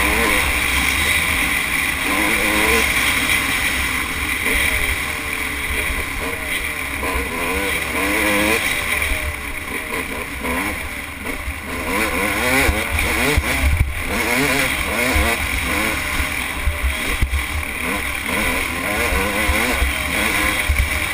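Dirt bike engine running at speed, its pitch rising and falling repeatedly with throttle and gear changes, over a low rumble of wind on the microphone.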